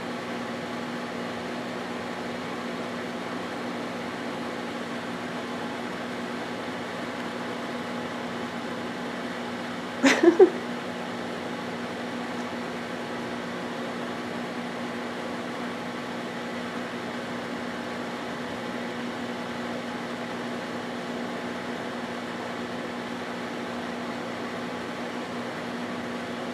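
Microwave oven running with a steady hum, heating a pair of microwaveable slippers. About ten seconds in there is a brief rattle of a few quick knocks.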